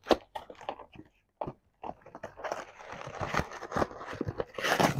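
Parcel packaging being handled and unwrapped: scattered crackles and taps, then about halfway through a denser run of crinkling and rustling that stops just before the end.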